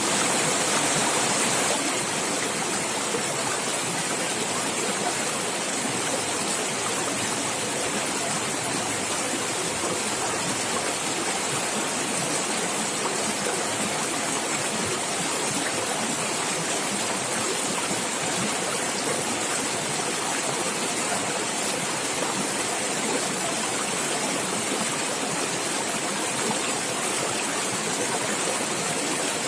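Water running and gurgling in a natural stream, a steady, unbroken rush.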